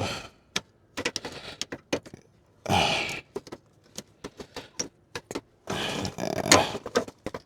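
Hands working plastic headlight parts loose from the housing: scattered clicks and knocks, with two longer scraping rubs a few seconds apart as a piece is slid out.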